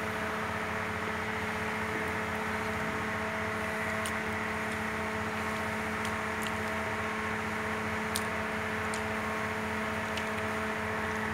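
Steady hum and whir of a running electric motor, with a few faint ticks.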